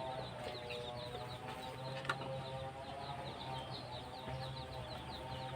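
Small birds chirping quickly and repeatedly in the background over a steady low hum, with a single sharp click about two seconds in.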